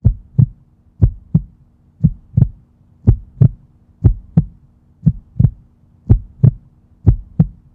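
Heartbeat sound effect: low double thumps, lub-dub, repeating steadily about once a second, eight beats in all.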